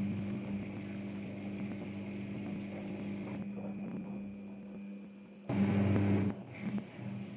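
Daewoo DWD-FT1013 washing machine running with a steady low motor hum that eases off about halfway through, then surges loudly for under a second about five and a half seconds in, with a shorter surge just after.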